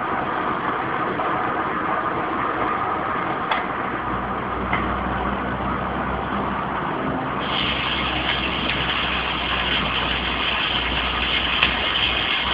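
Homemade copper-coil jet stove burning steadily under a frying pan with a continuous rushing noise. About halfway through, a brighter hiss joins it as bacon goes into the hot pan and starts to sizzle.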